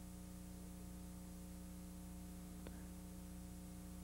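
Faint steady electrical hum with light hiss, and one soft click a little before three seconds in.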